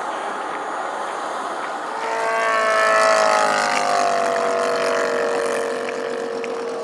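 A radio-controlled scale Spitfire model's propeller engine flies past. From about two seconds in its pitched drone grows loud and then slides down in pitch as the plane goes by. Before it comes there is only a steady rushing noise.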